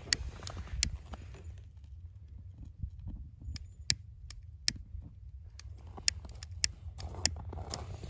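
Irregular sharp clicks, about ten over several seconds, as hands work at the firebox of a wood-burning camp stove packed with kindling and pine cones, over a steady low rumble.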